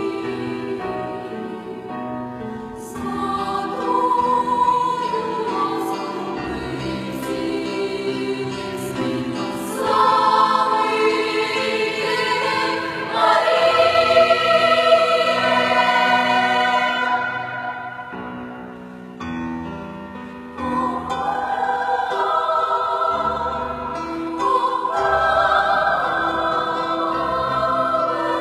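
A choir singing sustained chords in several parts, growing fuller and louder in the middle, dropping away briefly, then swelling again.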